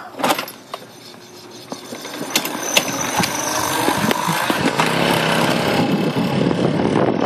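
1996 Kinetic TFR moped's 50 cc two-stroke engine being push-started: clicks and rattles as the moped is rolled, then the engine catches about two seconds in and runs, growing louder as it picks up speed.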